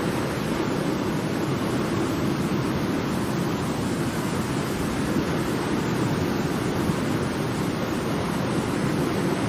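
Ocean surf: a steady, even wash of waves with no single break standing out.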